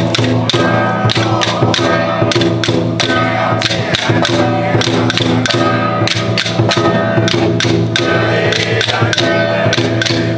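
Traditional temple ritual music: sustained melodic notes held over quick, regular percussion strikes.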